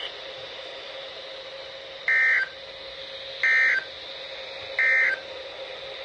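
Three short bursts of buzzy NOAA Weather Radio SAME digital data tones, about a second and a half apart, over faint radio hiss from a Midland weather radio's speaker: the end-of-message signal that closes the Required Weekly Test.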